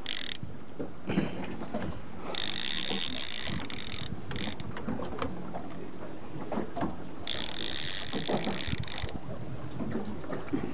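Multiplier fishing reel being wound in, its ratchet clicking in a fast, dense rattle. It comes in spells of about two seconds: two long ones and a short one between them.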